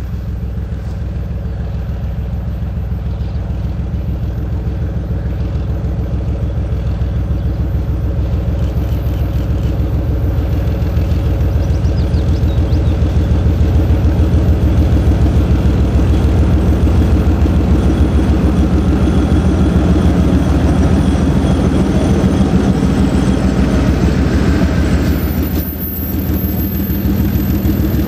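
Soviet M62 diesel locomotive's 14D40 two-stroke V12 engine running with a fast, even pulse as it hauls a container freight train. It grows louder as the locomotive approaches and passes, and near the end the container wagons roll by.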